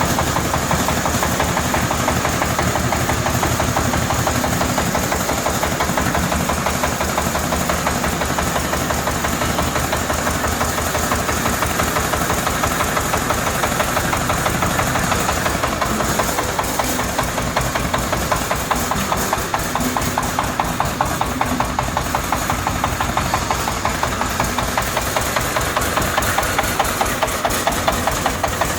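Compact excavator's small diesel engine running steadily, with a rapid, even clatter of firing pulses.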